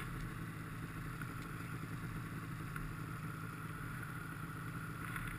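Snowmobile engine idling with a steady low drone while the sled sits stuck in deep snow.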